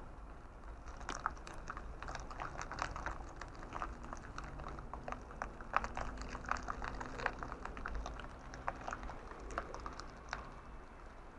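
Car driving: a steady low road rumble with many irregular light clicks and ticks throughout.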